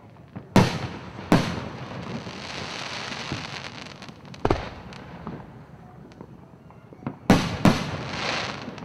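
Aerial fireworks shells bursting overhead: sharp bangs about half a second and a second and a half in, another at about four and a half seconds, and two in quick succession near the end, with a long hiss after the second bang.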